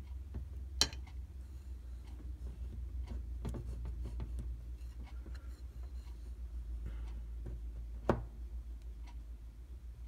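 Butter knife and fingers clicking and scraping lightly against a glass candle jar as soft wax is worked around the wick, with a sharp tick about a second in and a louder knock near the end. A steady low hum runs underneath.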